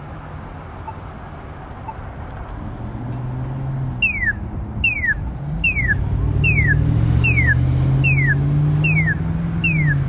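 Polara accessible pedestrian push button giving a faint tick about once a second, then from about four seconds in a loud chirp that falls in pitch and repeats a little faster than once a second: the audible walk signal that the crossing is open. Traffic runs underneath, with a vehicle engine rising and holding from about halfway through.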